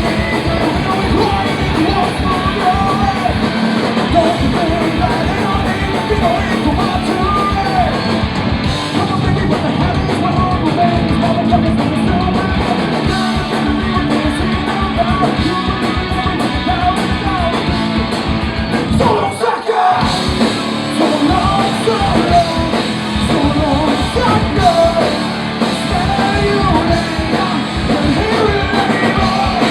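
Punk rock band playing live with singing and yelled vocals, loud and dense, with a brief break about twenty seconds in.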